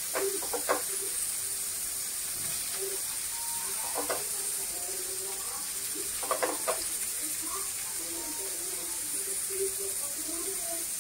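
Masala-coated wallago catfish steaks frying in oil in a shallow pan: a steady sizzle and hiss. A few light clicks and taps come as pieces are pressed into place, twice within the first second, once about four seconds in and a quick cluster around six and a half seconds.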